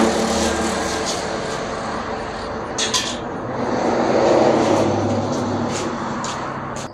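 A machine running with a steady low drone that swells about four seconds in, with a short sharp click near the middle.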